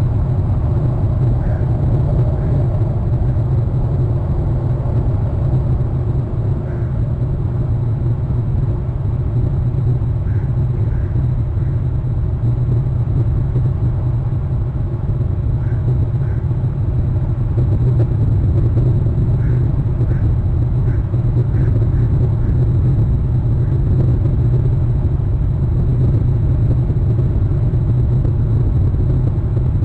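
Steady low rumble, with a faint short high note now and then.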